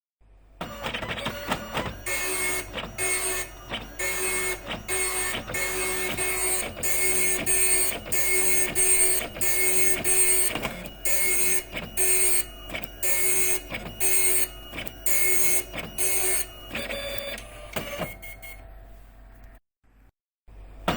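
Epson dot matrix printer printing line after line: the print head's rasping passes come about two a second, with short gaps between them. Near the end it falls quiet for about a second, then starts printing again.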